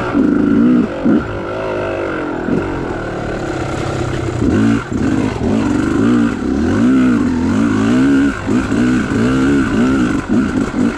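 Yamaha YZ250 single-cylinder two-stroke dirt bike engine running under the rider's throttle. It holds fairly steady for the first few seconds, then revs up and drops back again and again in quick blips from about halfway through.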